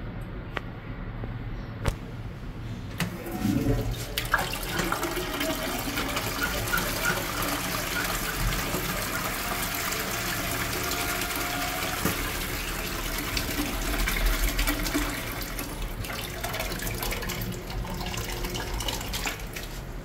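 Push-button flush valve flushing a GBH toilet: water rushes into the bowl starting about three seconds in, runs steadily for about fifteen seconds, and tails off near the end.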